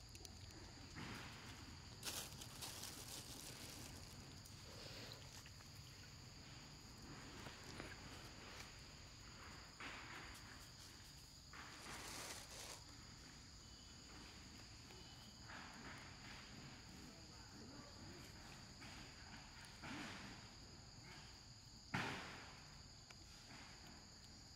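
Faint, steady high-pitched insect drone, with scattered short rustles and knocks, the sharpest a single knock near the end.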